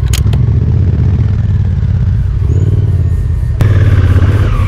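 Honda motorcycle engine running at low speed while the bike rolls, heard close from the bike-mounted camera. About three and a half seconds in it jumps abruptly to a louder run.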